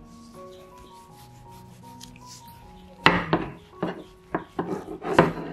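A rolling pin rolling over and knocking against a work surface as it flattens a piece of mochi dough: a run of sharp rubbing strokes starting about three seconds in, over soft background music.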